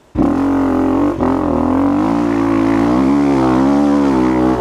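Honda CRF250F single-cylinder four-stroke dirt-bike engine revving and held under throttle at a nearly steady pitch, wavering slightly; it cuts in suddenly right at the start.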